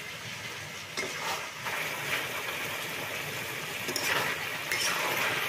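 Cut tomatoes going into hot oil in an iron wok and sizzling, while a metal spatula stirs the frying mixture and knocks against the pan a few times.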